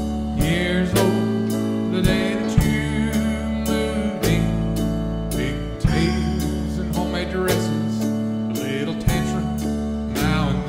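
Live country-gospel band playing an instrumental passage: strummed acoustic guitar over keyboard and a drum kit keeping a steady beat.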